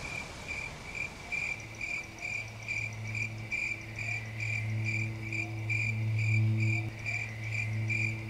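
Crickets chirping in an even rhythm, about two to three chirps a second. A low steady hum sits beneath them from about a second and a half in.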